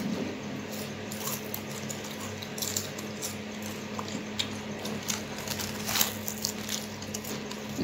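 Lay's potato chips crunching and crackling as they are bitten and chewed, a scatter of short irregular crackles over a steady low hum.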